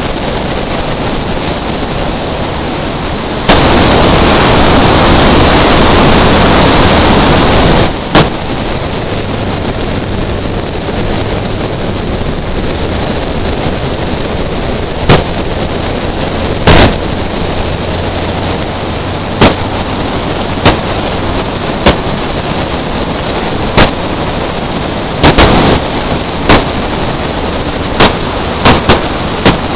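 Wind buffeting the microphone of a camera mounted outside a moving BMW drift car, over the car's running noise, with a much louder stretch starting about three and a half seconds in and lasting about four seconds. A string of sharp knocks comes through it, several close together near the end.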